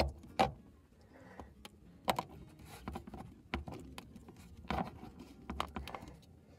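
Irregular small clicks, knocks and light scraping of a rearview mirror mount being handled and worked onto its windshield mounting button.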